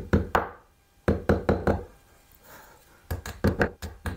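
Hammer tapping plastic wall plugs into freshly drilled holes in the wall: sharp knocks in short quick runs, a few at the start, a run of about five around a second in, and another run near the three-second mark.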